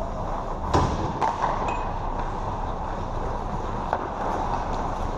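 Ice hockey play on a rink: a steady rumble with a few sharp clacks of sticks and puck. The loudest clack comes under a second in, two more follow shortly after, and another comes near four seconds.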